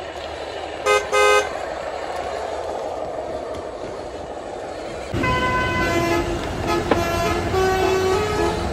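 Truck horn giving two short, loud toots about a second in. Later a horn sounds again in tones that step up and down in pitch, over a steady engine hum.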